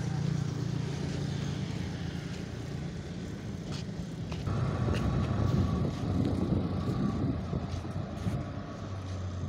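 Inboard engine of a wooden motor fishing boat running steadily while it manoeuvres alongside a jetty. About halfway through, the engine gets louder and rougher, and a steady whine comes in.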